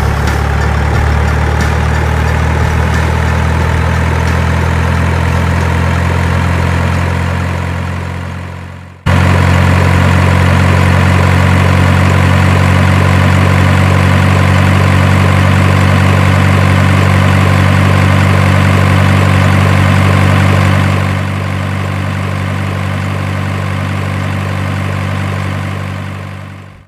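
Heavy engine idling steadily, a dubbed vehicle sound effect. It fades away about eight seconds in, cuts straight back in a second later, turns a little quieter around twenty-one seconds, and fades out at the end.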